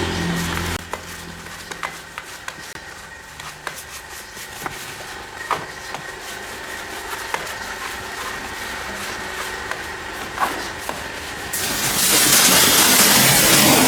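A machine hum cuts off about a second in, followed by scattered clicks and knocks. About 12 s in, a pressure washer starts spraying with a loud, steady hiss.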